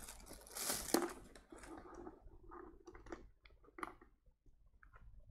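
Test leads being handled and plugged into a handheld LCR meter: a rustle of the cables, a sharper click about a second in, then scattered light clicks and taps that thin out.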